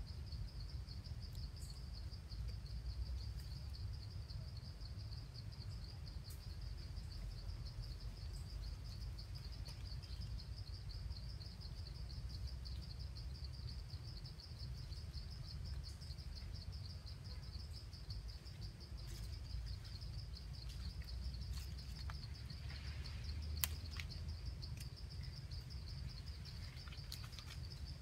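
Continuous high-pitched insect trill, rapidly pulsing at one steady pitch, over a low outdoor rumble of wind or camera handling, with a few scattered clicks and a short rustle near the end.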